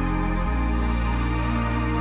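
Background music with slow, held chords that change about half a second in.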